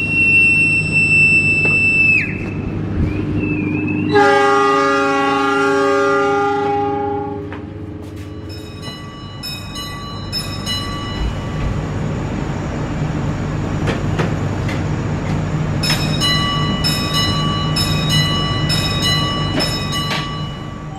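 A railway departure whistle blown as one steady, high note for about two seconds, the S40 signal that the line is clear. About four seconds in, an Indonesian locomotive horn answers with a long blast of several seconds (the S35 ready-to-depart signal). The train then rolls off with a steady rumble and repeated clicks.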